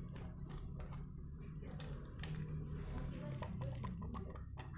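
Irregular small clicks and taps of fingers and fingernails working at the plastic case of a fibre-optic 1:8 splitter box, trying to get it open, over a steady low hum.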